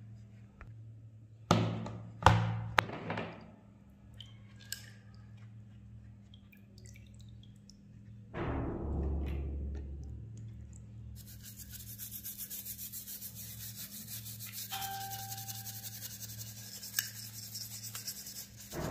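Rusty steel gun parts knock sharply against metal three times with a brief ring, about two seconds in. From about eleven seconds on, a wire brush scrubs a steel part with fast, even scratching.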